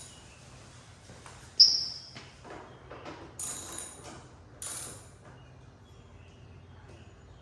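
A few sharp clicks and clinks of small tools and parts being handled. The loudest comes about one and a half seconds in, with a short high ring, and the others are spread over the next few seconds.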